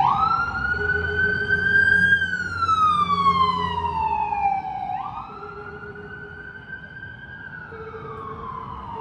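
A single electronic tone, siren-like, from a DIY noise-electronics rig. It rises over about two seconds, sinks slowly for three, jumps back up about five seconds in and sinks again, growing quieter in the second half.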